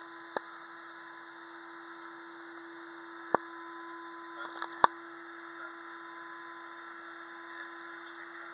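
Steady cabin hum of an Airbus A320 taxiing, heard from inside by the window over the wing. A few short sharp knocks cut through it, one right at the start and the loudest around three and a half and five seconds in.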